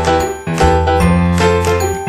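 Background music: bright, bell-like chiming notes over sustained bass notes, struck about twice a second in a steady beat.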